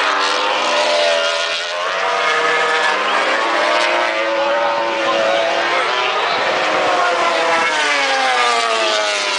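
MotoGP racing motorcycle engines at high revs on a circuit, the engine note rising and falling as the bikes accelerate, change gear and brake through the corners, with more than one engine note overlapping at times.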